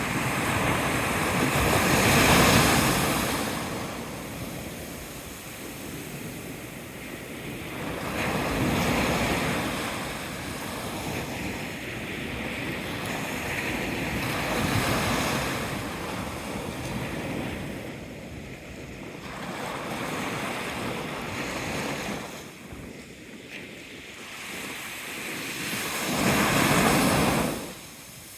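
Sea waves breaking and washing in, swelling and fading about every six seconds. The loudest swells come near the start and near the end, and the last one cuts off sharply.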